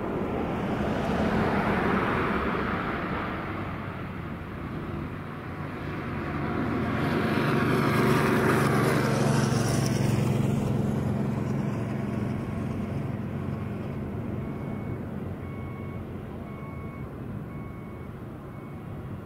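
Cessna 210 Centurion's six-cylinder piston engine and propeller droning on the landing approach, swelling twice, loudest about eight seconds in, then slowly fading.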